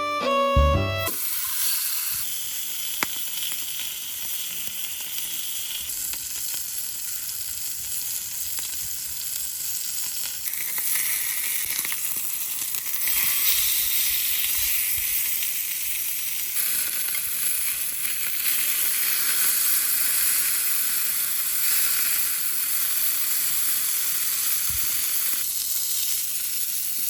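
Food sizzling as it fries in a pan, a steady hiss whose texture shifts a few times.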